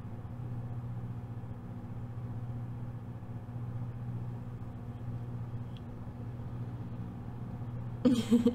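A steady low machine hum at an even pitch; a woman starts speaking near the end.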